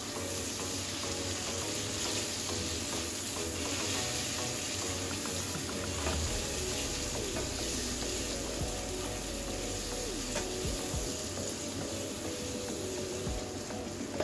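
Chopped onions and tomatoes with spices sizzling in a nonstick wok, steady hiss of frying, while a slotted spatula stirs them around the pan with a few soft scrapes and knocks.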